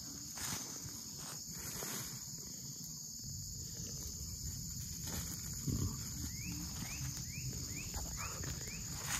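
Steady high-pitched insect drone, with footsteps and rustling in dry leaf litter. In the second half comes a run of about six short rising chirps, roughly two a second.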